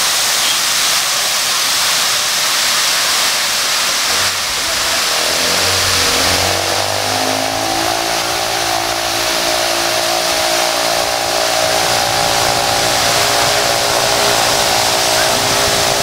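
Fountain jets spraying into a pond, a steady loud hiss of falling water. From about four seconds in, an engine or motor hum joins it, rising in pitch for a few seconds and then holding steady.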